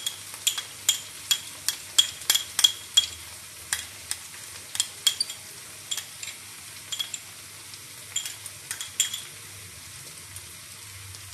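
Capsicum and onion sizzling steadily in a frying pan. Over the sizzle comes a run of sharp spoon clicks and taps as fresh cream is scooped into the pan; the clicks come thick and fast for the first few seconds, then thin out.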